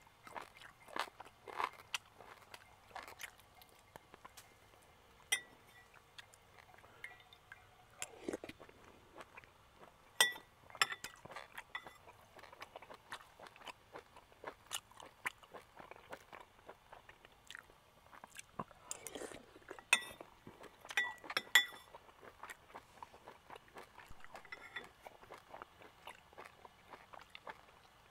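Close-up eating sounds: a person chewing and crunching grilled food, with many small mouth clicks. A few sharp ringing clinks of a metal spoon on a bowl come about ten seconds in and again around twenty seconds in.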